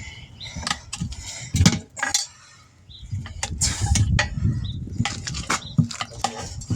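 Metal tools and parts clinking and knocking during work on a car wheel, with many sharp, irregular taps over a low rumble.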